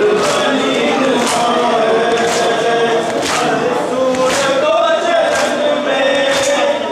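A crowd of men chanting a noha lament together while beating their chests in unison (matam). The chest-beats land as sharp slaps about once a second, under the sung voices.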